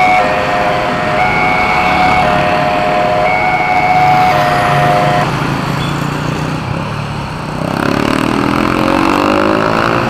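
Railway level-crossing warning siren sounding a repeating two-part electronic tone, one cycle about every two seconds, that stops about five seconds in as the train clears. Traffic engines idle underneath, and near the end an engine revs up, rising in pitch, as the traffic pulls away.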